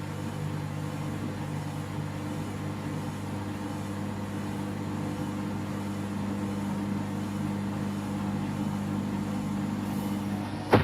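Candy Grand'O Vita washing machine's motor turning the drum in its intermediate distribution phase, spreading the load before a possible spin: a steady low hum of several tones whose pitch shifts slightly about halfway through.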